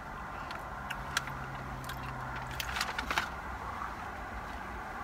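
Steady low hum inside a parked vehicle's cabin, with a few small clicks and rustles of fast-food packaging and a dipping-sauce cup being handled while eating.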